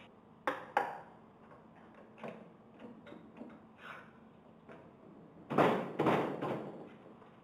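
Steel hand tools clinking against a stainless steel pump: two sharp clicks near the start, a few faint ticks, then a louder cluster of knocks and rattles about two thirds of the way through as a socket and bar are fitted onto the pump's shaft end.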